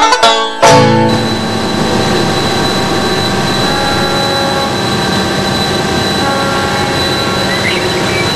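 Banjo music ends on a last chord, then the supply boat's horn sounds one long steady blast over wind on the microphone, in answer to the semaphore message.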